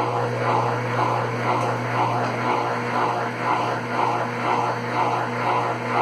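Consul Facilite CWC10 top-load washing machine running, its motor giving a steady hum under a rhythmic swish about twice a second; the machine works again after its power board was replaced.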